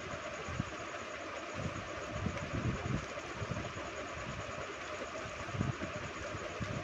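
Fingers mixing rice on a plate and chewing, heard as irregular soft low thuds over a steady background hiss.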